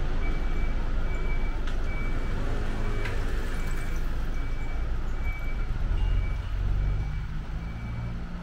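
A vehicle's reversing alarm beeping, one steady high beep about every 0.7 seconds, over the low running of an engine.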